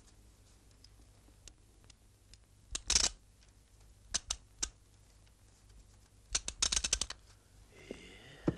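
Crisp clicks and snaps from a small latticework model of the Eiffel Tower being handled: a couple about three seconds in, three quick ones around four seconds, and a fast run of them near seven seconds.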